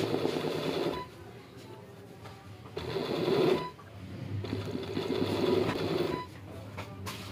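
Sewing machine stitching woollen Pasham embroidery in short runs: three spurts of one to two seconds each, stopping and starting again between them.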